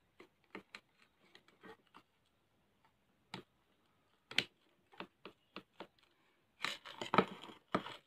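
Scattered small clicks and taps of a phone logic board being seated in a spring-loaded metal PCB holder and its clamp jaw slid against the board, with a busier clatter of knocks in the last second or so.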